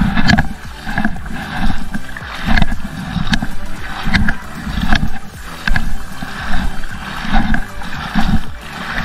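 Splashing footsteps of someone wading through shallow water, a step about every second, over a low rumble of wind on the microphone.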